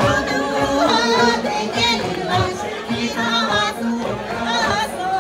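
Music with singing: a voice sings with a wavering vibrato over pitched accompaniment.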